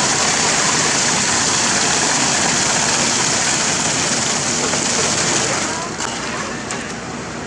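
Road-construction machinery running with a steady, loud, hissing engine noise that eases somewhat about six seconds in.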